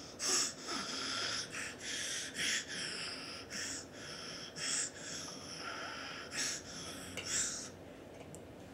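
A baby huffing out a series of about ten short, breathy puffs of air, the first one the loudest.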